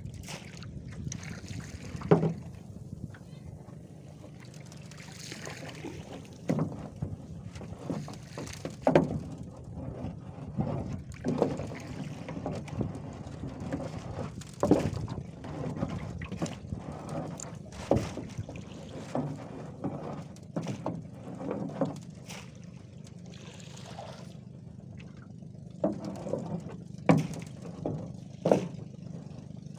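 Collapsible net traps being hauled from the water into a wooden boat: irregular knocks of the frames and pole against the hull, with splashes of water, over a steady low hum.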